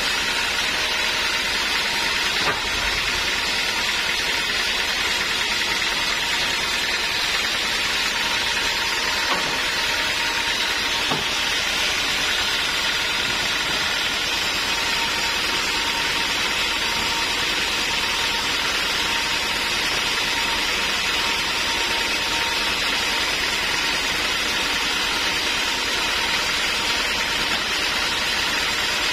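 Band sawmill running steadily with no cut under way: a constant machine drone with a hiss. Two faint knocks come through it, early and about a third of the way in.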